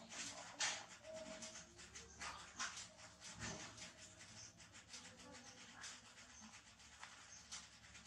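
Faint, irregular wet clicks and smacks from a baby monkey sucking on its fingers.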